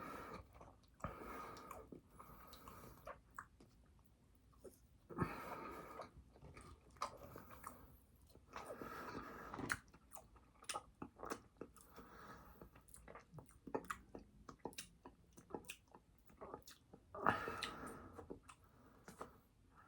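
Quiet close-up chewing of fast food, with many small wet mouth clicks and a few longer, louder noisy swells.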